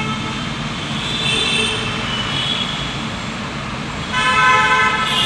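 Vehicle horns honking in congested road traffic, heard from inside a car over the steady rumble of traffic: faint toots in the first couple of seconds, then one loud horn blast of about a second near the end.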